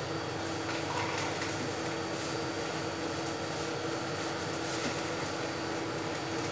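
A steady mechanical hum and hiss, like a running appliance or fan. Over it, light crinkling of a thin plastic bag as it is handled and emptied into a plastic bowl.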